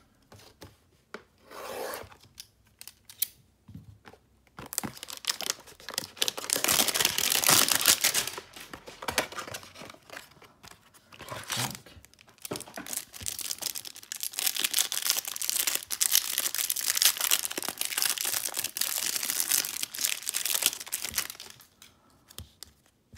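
A few light snips and clicks of scissors cutting into a trading card hanger box. Then the silver foil wrapper around a stack of football cards is torn and crinkled open in two long stretches of loud rustling, about five seconds in and again from about twelve seconds in.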